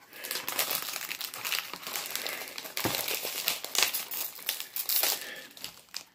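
Plastic shrink-wrap being torn and crumpled off a sealed DVD case: continuous crinkling that fades out near the end.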